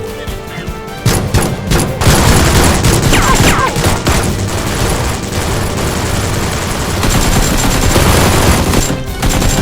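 Rapid, sustained volleys of gunfire, starting about a second in and continuing densely, over background music.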